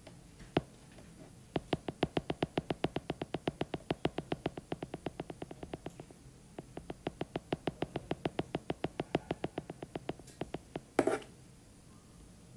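Rapid, evenly spaced clicks, about eight a second, in two long runs with a short break near the middle: repeated tapping on a tablet screen as handwritten annotations are undone stroke by stroke. A short, louder rush of noise comes near the end.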